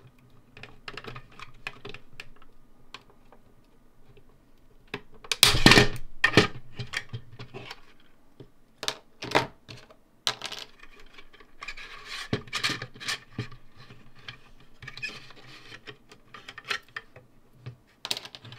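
Irregular clicks, rattles and scrapes of hard 3D-printed PLA plastic parts of a jet engine model being handled and pulled apart. The loudest clatter comes about five to six seconds in.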